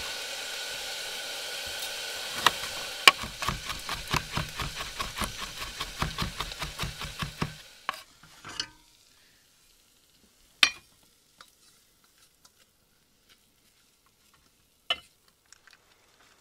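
Food sizzling in a pot while being stirred briskly, a fast regular scraping of about four strokes a second that stops abruptly about eight seconds in. Then it is quiet apart from a few light knocks and clicks.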